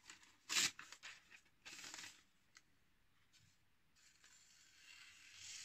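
A sharp chef's knife slicing through sheets of paper: two short rasping cuts, about half a second and two seconds in, going through cleanly without snagging, a test of the edge's sharpness.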